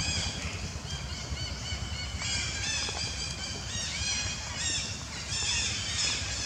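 Macaques calling: many short, high-pitched squeaks and squeals in quick series, over a steady low rumble.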